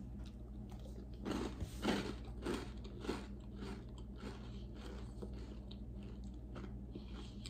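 Dry chocolate cereal puffs, Little Debbie Swiss Roll cereal eaten without milk, crunching as they are chewed. Soft crunches come about every half second, strongest in the first few seconds and fading as the mouthful is chewed down.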